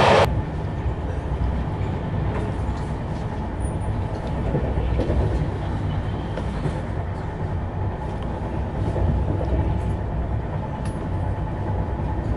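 Steady low rumble of a moving passenger train heard from inside an air-conditioned coach running at speed, with faint occasional clicks. A louder noise cuts off abruptly at the very start.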